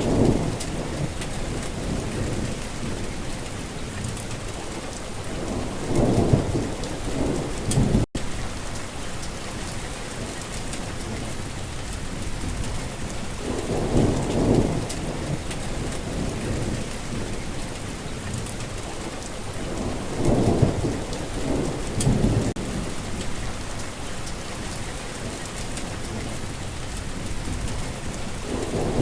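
Heavy rain falling steadily, with low rolls of thunder rumbling up and fading every six to eight seconds. The sound cuts out for a split second about eight seconds in.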